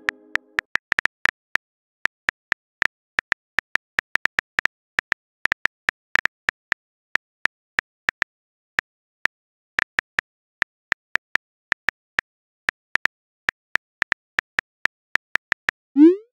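Phone keyboard click sounds from a simulated on-screen keyboard: rapid, irregular taps as a message is typed letter by letter. Near the end comes a short rising whoosh as the message is sent.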